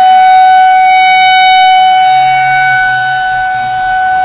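Local fire department's siren sounding one loud, steady tone.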